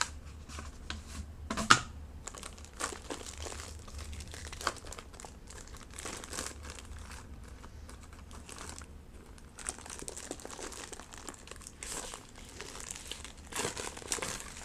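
Paper packing slip and packaging crinkling as they are handled and put away, in short irregular rustles; the loudest comes about two seconds in.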